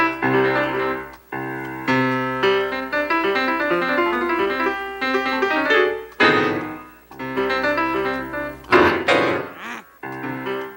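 Piano playing a piece in phrases of chords and runs, with short pauses between phrases. Twice, around six and nine seconds in, brief noisy sweeping sounds break in over the notes.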